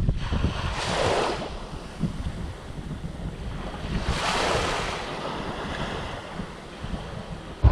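Sea waves washing in twice, about a second in and again around four seconds, under wind buffeting the microphone. A motorcycle engine starts right at the very end.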